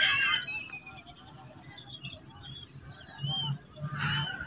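Birds chirping in the open: short rising-and-falling calls over a steady high pipping about five times a second. A rooster's crow trails off in the first half-second, and a short sharp noise comes near the end.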